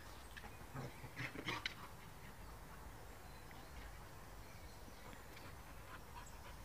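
A dog making a few short, quick sounds, clustered about one to two seconds in.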